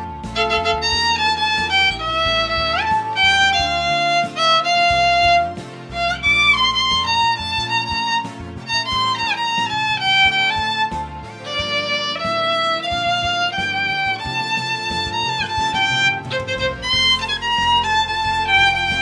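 Solo violin, bowed, playing a lyrical melody line with a few slides between notes.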